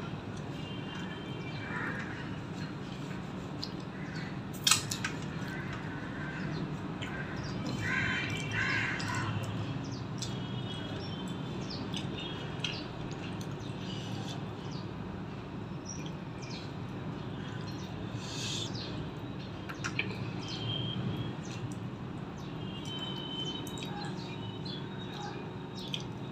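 Eating with the fingers: rice and fish curry squished and mixed by hand on a steel plate, with chewing and small wet clicks, and one sharp click about five seconds in. Birds chirp briefly in the background every few seconds.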